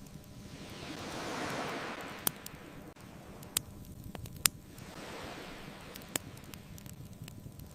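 Ocean waves washing ashore in slow swells that build and fade, twice, with a handful of sharp pops and crackles from a wood bonfire.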